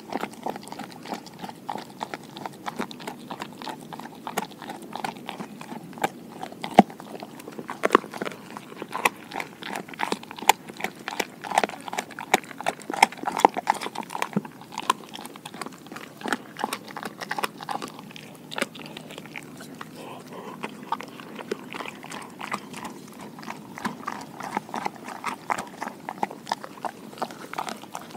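A Doberman chewing a raw pig ear, her teeth crunching and clicking through the cartilage in many quick, irregular bites.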